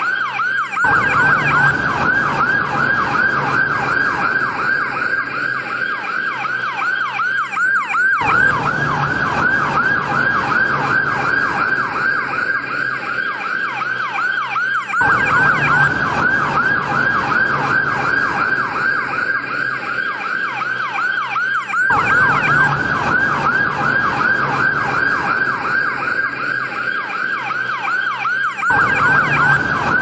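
Ambulance siren sounding a fast yelp: quick rising-and-falling sweeps, several a second, in a pattern that restarts about every seven seconds.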